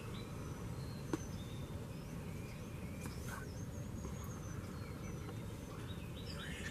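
Faint songbirds chirping now and then over a steady low background rumble, with one soft click about a second in.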